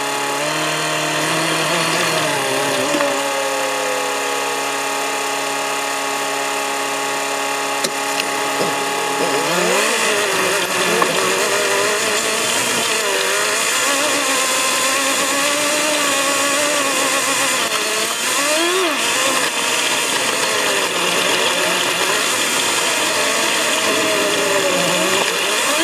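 Off-road vehicle's engine heard from inside the cabin, with the footage sped up so it sounds high and whiny. It runs steadily for about the first nine seconds, then its pitch rises and wavers up and down as the revs change.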